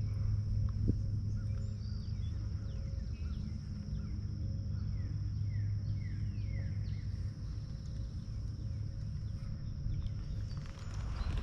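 Outdoor birdsong: many small birds chirping in short notes that drop in pitch, over a steady low rumble.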